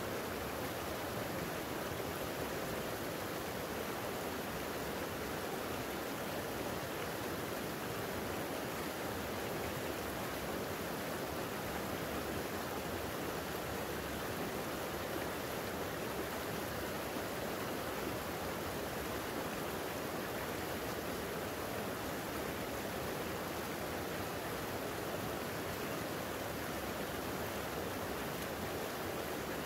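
Creek water flowing steadily, an even, unbroken rush that keeps the same level throughout.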